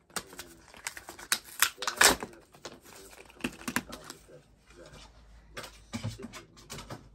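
Small items being picked up, shuffled and set down on a desk during tidying: an uneven run of light clicks, taps and rustles, the loudest knock about two seconds in.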